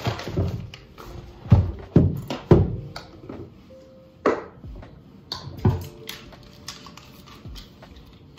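Background music with objects being picked up and set down on a desk. The handling makes several sharp knocks and clatters, the loudest three coming close together about two seconds in.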